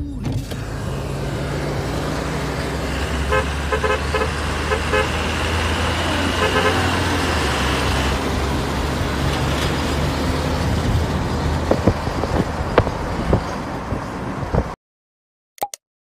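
Diesel prime mover running past at low speed while its telolet-style musical air horn plays a string of short repeated notes, in two bursts a few seconds apart. The truck sound cuts off suddenly near the end, followed by a short pop.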